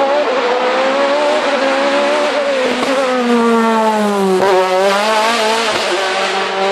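Naturally aspirated V8 of an ex-works Opel Astra DTM race car driven hard as it passes close by, the engine note climbing and falling several times.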